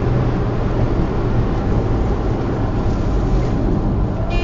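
Steady road noise of a car driving at highway speed, heard from inside the cabin: tyre and engine rumble with a low, even drone.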